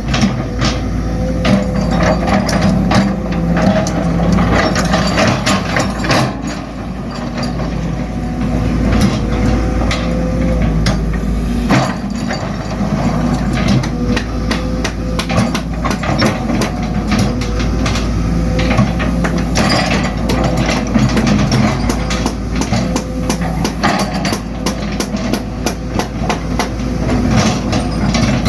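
Excavator engine running steadily under many irregular metallic clanks and scrapes as the toothed bucket works the road surface.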